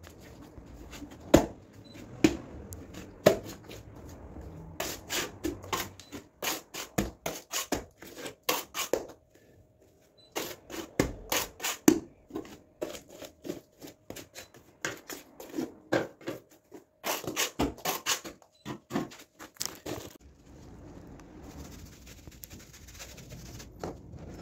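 Sharp taps and slaps of a hand tool against wet plaster on a wall, coming in quick runs of several a second with short pauses between them. A few louder single strikes come in the first few seconds, and near the end the sound turns to a softer steady hiss.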